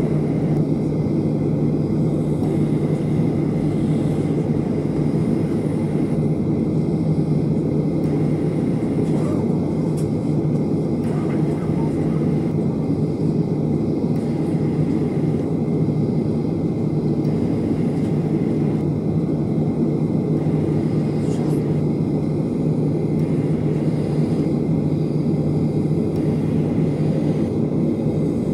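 Cabin noise inside a Boeing 737-800 taxiing after landing: a steady low rumble with a held hum from its CFM56-7B engines at idle, with no change in level.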